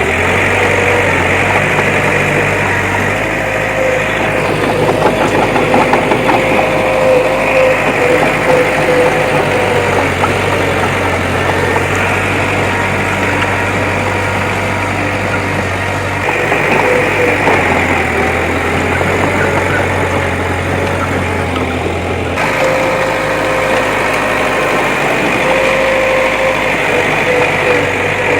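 Diesel engine of heavy earthmoving machinery running steadily, its note shifting a little now and then.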